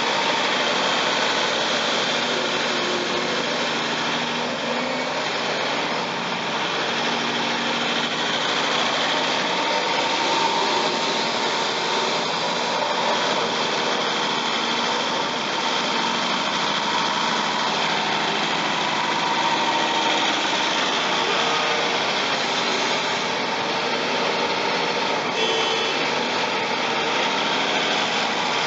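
CAT 352F hydraulic excavator's diesel engine and hydraulics running steadily while it digs and swings loaded buckets, a continuous drone with a constant high whine.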